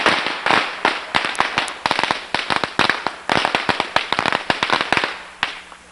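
A string of firecrackers going off: a fast, irregular volley of loud cracks that thins out and stops about five and a half seconds in.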